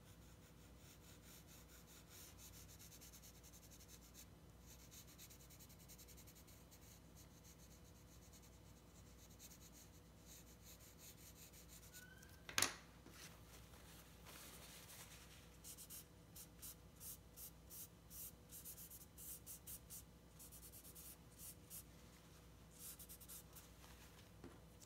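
Faint scratching of a graphite pencil shading on drawing paper. About halfway through there is one sharp click, the loudest sound, and after it a run of short quick strokes, two or three a second, with a short pause near the end.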